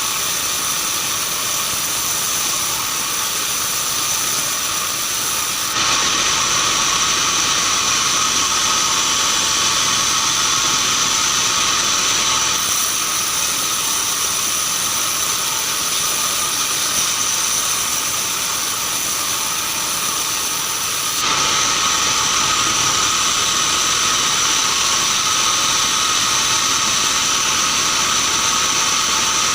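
Band sawmill running steadily while sawing keranji hardwood, a continuous hissing machine noise with a steady whine. It grows louder about six seconds in, drops back about halfway through, and grows louder again about twenty seconds in.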